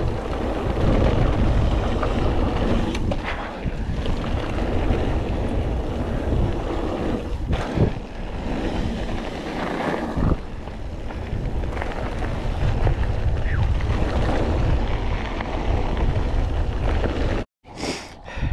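Mountain bike descending a rough trail at speed: wind buffeting the microphone over the rumble of tyres on the dirt and gravel, with knocks and rattles from the bike over bumps. The sound cuts off abruptly near the end.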